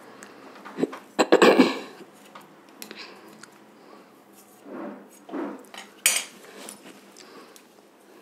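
Metal spoon scraping and clinking against a steel bowl as it stirs and scoops a crumbly sesame, peanut and sugar laddu mixture, in scattered strokes, the loudest about a second and a half in.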